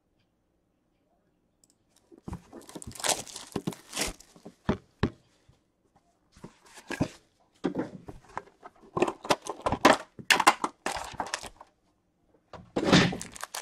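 Plastic shrink wrap torn off a hockey card tin and crinkled, with rustling and sharp clicks as the tin is opened and its foil packs are taken out. It starts about two seconds in.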